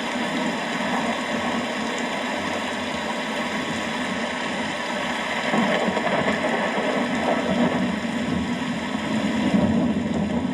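Steady rain falling, with a low thunder rumble that builds about halfway through and swells toward the end.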